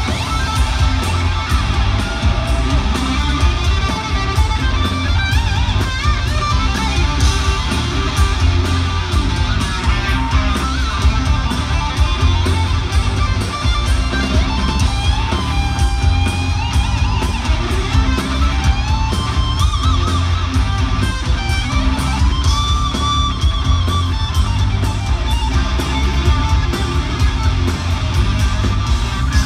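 Hard rock band playing live at concert volume, heard from the crowd: a lead electric guitar solo with bending, wailing notes over pounding drums and bass, with no vocals.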